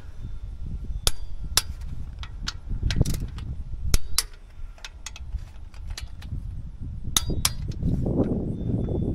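Metal hand tools clinking and tapping at irregular intervals, some strikes ringing briefly, over low handling rumble. A duller rustling swell comes near the end.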